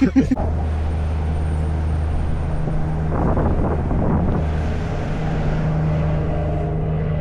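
Steady low drone of a vehicle engine, with a brief busier patch about three seconds in.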